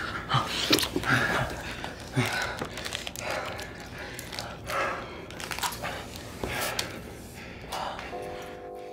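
Two men breathing heavily close together, with a few short low moans in the first couple of seconds. About eight seconds in, a sustained music chord comes in.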